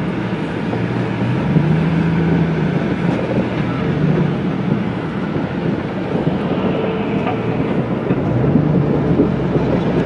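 Pickup truck driving slowly across a rough dirt yard, heard from inside the cab: steady engine and tyre noise, the engine note rising and falling a little. The truck is carrying a heavy load of broken concrete.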